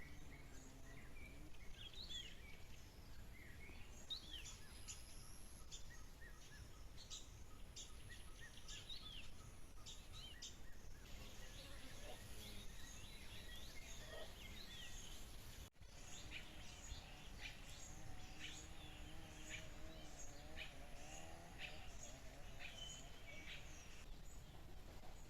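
Songbirds chirping and calling: many short chirps and quick trills over a faint steady background noise. The sound cuts out for a moment about sixteen seconds in.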